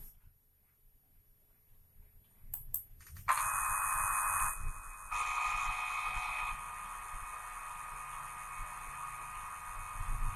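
CNC lathe starting up and running: a couple of clicks, then from about three seconds in a steady high whine with hiss, which shifts twice before settling.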